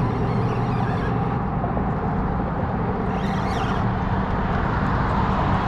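Steady road traffic noise from the bridge, a continuous low hum. A brief high whine rises and falls about three seconds in.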